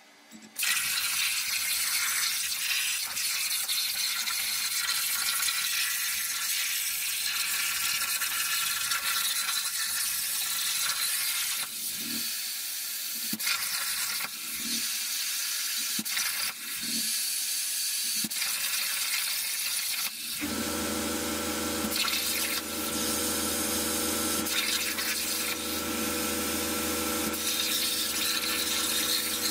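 Jasic Cut 45 air plasma cutter cutting steel sheet on a homemade CNC table: the loud, steady hiss of the plasma arc and air starts suddenly about half a second in, with a few brief breaks in the middle. About twenty seconds in, a low machine hum joins it.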